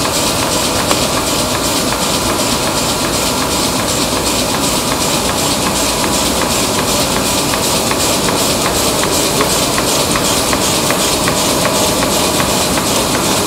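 2007 Mitsubishi D3000LX6 six-colour 40-inch sheetfed offset press running on test: a steady, loud mechanical din with a hiss, and a quick regular ticking about three times a second.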